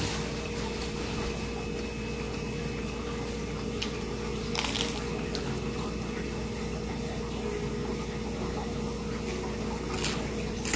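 Soft crunches and mouth sounds of biting into and chewing a toasted grilled cheese sandwich, the crispest bite about four and a half seconds in, over a steady low hum.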